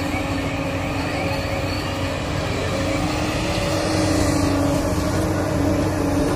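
JCB tracked excavator's diesel engine running steadily under load as it digs and lifts a bucket of earth, growing a little louder about four seconds in.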